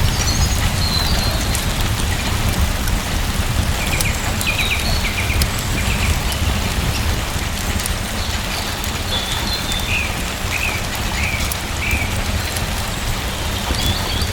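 Steady rain falling, with a bird chirping in short runs, around four seconds in and again from about ten to twelve seconds.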